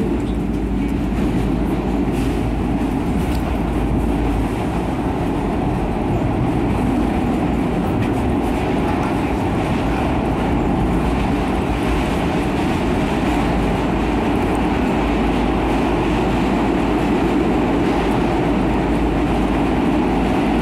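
Inside a SEPTA Broad Street Line subway car running between stations: steady rumble and rail noise of the wheels on the track, with a few faint clicks.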